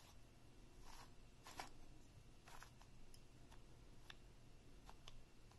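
Soft plastic clicks of a QiYi 2x3x3 cuboid's layers being turned by hand, about half a dozen separate turns spread over several seconds.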